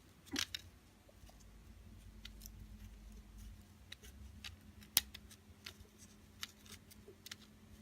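Scattered small clicks and ticks of the parts and tools of a disassembled ABUS 34/55 padlock being handled, with one sharper click about five seconds in, over a faint steady hum.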